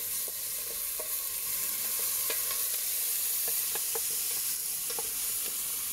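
Chopped onions, garlic, ginger and green chillies frying in hot oil in a stainless steel pot: a steady sizzle, stirred with a wooden spoon, with a few light clicks now and then.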